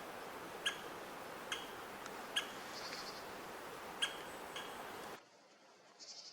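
Great spotted woodpecker giving its sharp single 'kik' call, five times at uneven intervals, with a brief high trill from another bird twice. The background goes quieter about five seconds in.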